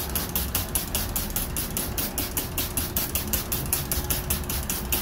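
Hand trigger spray bottle squirting cleaner onto a greasy metal grill drip tray in quick, evenly repeated spritzes, about four or five a second.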